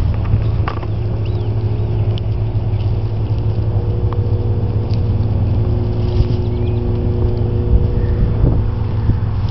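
A strange, unexplained steady low hum, with several faint held tones above it that grow clearer from about four seconds in, over a rough low rumble.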